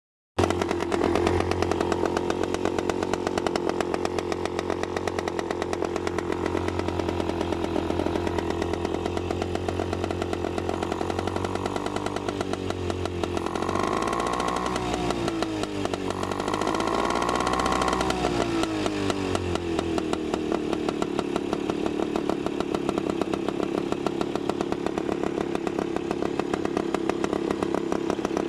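A 1956 outboard motor running steadily with a fast, buzzing firing rhythm. About halfway through its speed drops and picks up again twice, then it settles back to a steady run.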